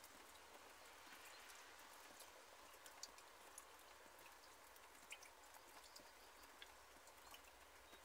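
Faint light rain falling on an orchard: a soft, even hiss with scattered ticks of single drops.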